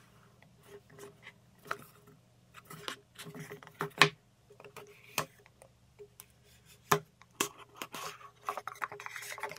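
Cardboard smartwatch box handled on a wooden table: scattered taps, knocks and scrapes as it is turned over, with one sharp knock about four seconds in. Near the end comes a longer sliding rustle as the inner box is drawn out of its lid, over a faint steady hum.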